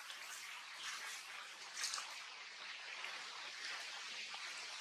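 Soft rustling and light crackling of grass and dry leaves, with one sharper crackle about two seconds in, over a steady hiss.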